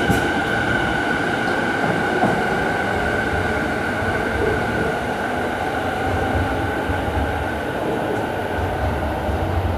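Electric commuter train: a steady high whine over a low rumble.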